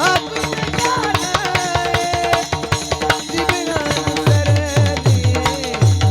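Kirtan music: a held melody line over fast pakhawaj drumming. Deep bass drum strokes come in strongly about four seconds in.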